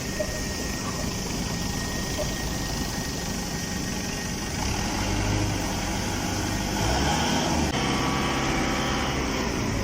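Industrial machinery running steadily with a low engine-like hum that swells about five seconds in and again near the end.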